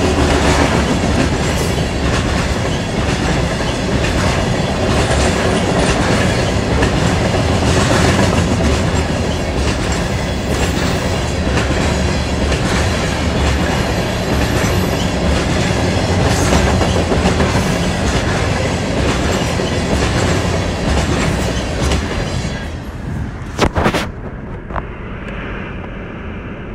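Norfolk Southern local freight train's cars rolling past, wheels clacking over the rail joints in a steady rhythm. Near the end a couple of sharp clanks sound and the rolling noise falls away.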